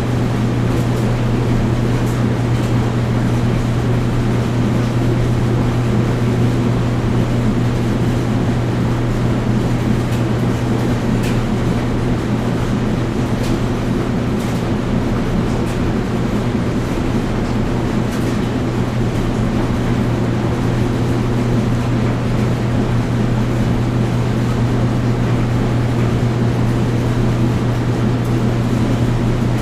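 Washing machine and clothes dryer running together: a steady, even low hum with a noisy churn above it and a few faint light ticks.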